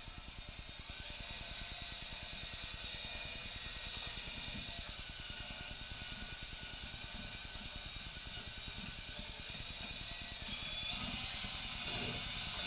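Handheld drill running a Mud n' More MixBall mixer in a bucket of hot mud (setting-type joint compound): a steady motor whir. Near the end the drill runs a little harder, with a higher whine.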